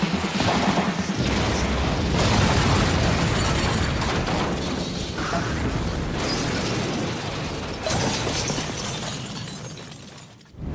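Dense clattering, crashing sound effects from an anime action scene, changing abruptly every couple of seconds and fading out near the end.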